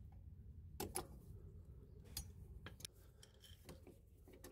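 Faint, scattered metallic clicks and light scrapes of a screwdriver tip working against a horseshoe clip on a drum brake's parking brake lever pin, about half a dozen short ticks.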